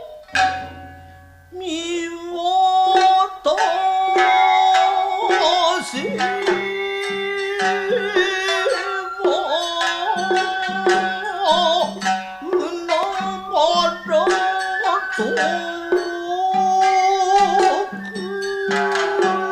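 Nagauta ensemble playing an instrumental passage: plucked shamisen with long, wavering bamboo-flute notes and regular hand-drum strokes. A few sharp drum strikes open the passage.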